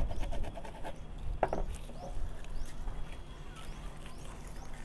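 Light, irregular scratching and clicking of a small pointed metal tool scraping the carbon coating off a sheet from a lithium-ion cell, with one sharper click about a second and a half in.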